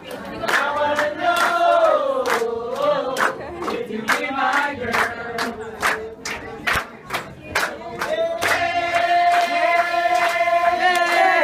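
A crowd singing and chanting together over steady rhythmic clapping, about two claps a second, with one long held note in the last few seconds.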